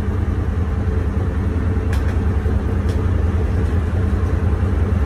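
Fishing boat's engine running steadily with a low hum, with two faint ticks about two and three seconds in.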